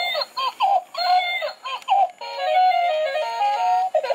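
Crawling baby doll toy playing its built-in sounds through a small tinny speaker: a few short baby-voice clips that swoop in pitch, then from about two seconds in a beeping electronic tune of stepped notes.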